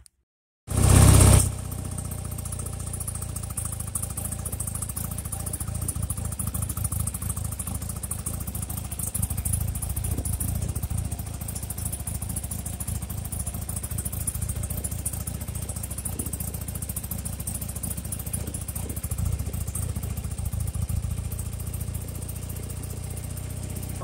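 Carbureted motorcycle engine cold-started: it starts about a second in, loudly at first, then settles into a steady idle as it warms up.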